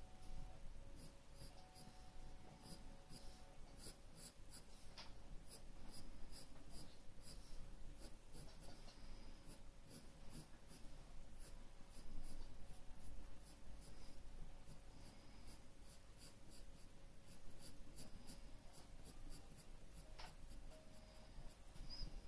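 Graphite pencil sketching on paper: many short, quick strokes scratching in irregular runs with brief pauses, faint throughout.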